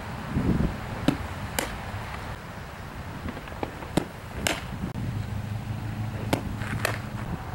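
Three fastpitch softball pitches. Each gives two sharp smacks about half a second apart, the second being the ball popping into the catcher's mitt.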